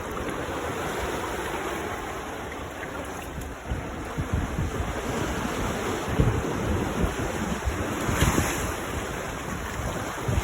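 Waves breaking and washing on a beach, with gusting wind buffeting the microphone. A wave rushes up a little louder about eight seconds in.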